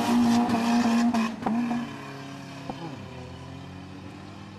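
Two hatchback drag cars, one a silver VW Golf, launching together at full throttle. The loud engine note breaks twice in quick succession as they shift up, then drops away sharply about two seconds in as the cars pull away down the strip.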